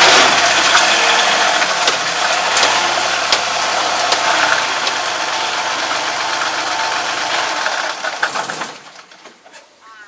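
Yanmar YT333 tractor's diesel engine running at low speed with a ticking, rattling clatter, then shut off about nine seconds in.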